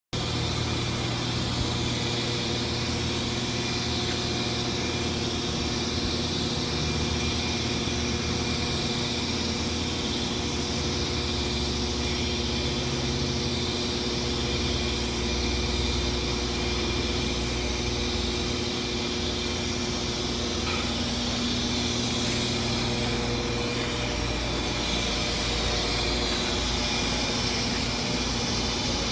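Machinery running steadily: a continuous hum with several constant tones under an even hiss. It begins abruptly and does not change.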